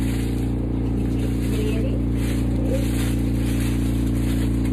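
A steady mechanical hum at several constant pitches, unchanging throughout, with a few faint voices in the background.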